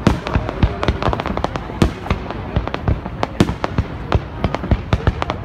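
Aerial fireworks display: shells bursting overhead in a dense, unbroken run of sharp bangs and pops.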